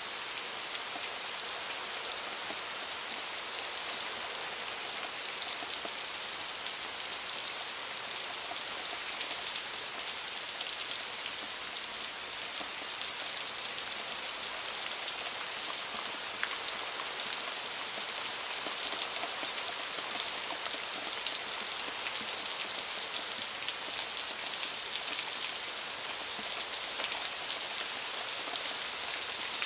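Light summer rain falling steadily: a dense, even hiss of drops with a few sharper individual drop hits standing out here and there.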